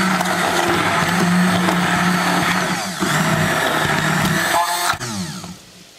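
Handheld stick blender running in a stainless steel pot, puréeing cooked apples into apple sauce: a steady motor hum with a brief dip about three seconds in. Near the end it switches off and spins down with a falling whine.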